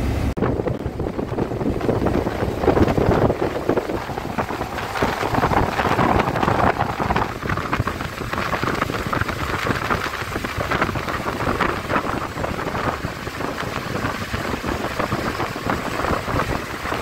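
Inside a moving BharatBenz bus's front cabin: a steady rushing of road and wind noise, with wind buffeting the microphone.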